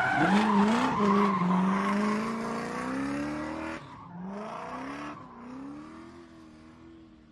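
Outro sound effect for an animated channel logo: sliding, wavering tones, loud for about four seconds, then dropping suddenly and fading away.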